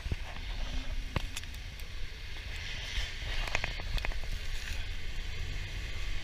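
Off-road side-by-side's engine running low and steady as it churns through deep mud, with mud spattering and a few sharp clicks and knocks from about a second in.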